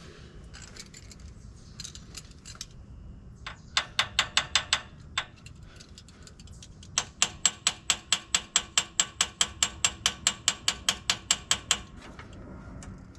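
Hand ratchet wrench clicking as it is worked back and forth: a short run of sharp clicks about four seconds in, then a longer steady run of about seven clicks a second that stops near the end.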